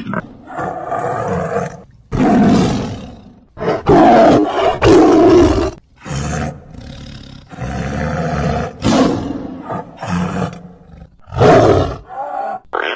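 A large animal calling loudly in a run of about a dozen rough calls with short gaps between them.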